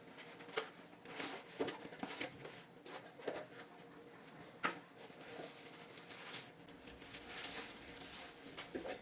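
A package being handled and unboxed: scattered light clicks and knocks, with a longer stretch of rustling near the end.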